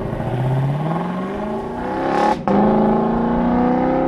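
Lexus LC 500's naturally aspirated 5-litre V8 accelerating away, its pitch climbing. About two and a half seconds in, the engine note breaks briefly for an upshift of the automatic gearbox, then climbs again from a lower pitch.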